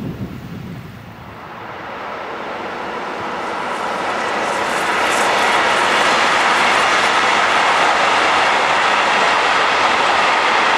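Freight train of tank wagons hauled by an electric locomotive passing close by: wheel and rail noise that grows louder over the first five seconds or so, then stays steady as the wagons roll past.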